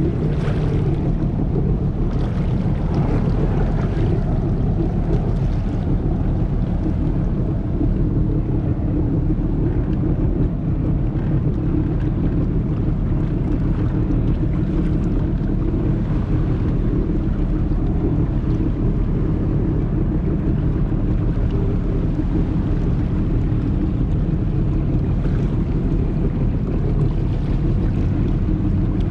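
Boat engine running steadily, a constant low hum, with water noise and wind on the microphone.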